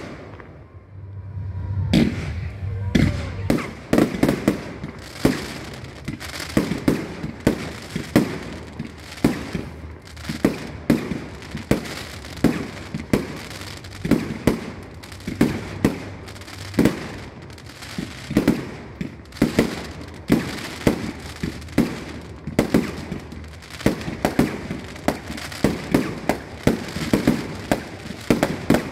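Fireworks display: a rapid barrage of aerial shells bursting, about two to three sharp bangs a second, starting after a short lull about two seconds in.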